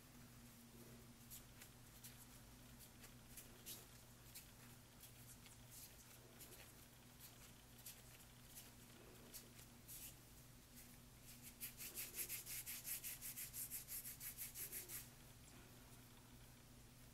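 Hands rubbing and pressing soft bread dough while shaping it into balls, faint soft rubs scattered through, then a few seconds of quick rhythmic rubbing as a ball is rolled between the palms, over a low steady hum.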